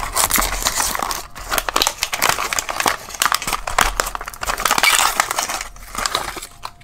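Plastic blister packaging and its card backing crinkling and crackling as a carded Matchbox diecast car is opened, with dense small clicks and crackles throughout; it dies down near the end.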